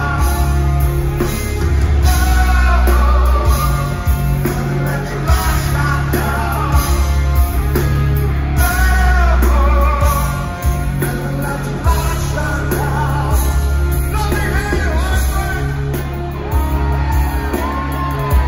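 Live rock band playing loud through an arena PA: a male lead singer over electric guitars, bass and drums, with a heavy, steady low end.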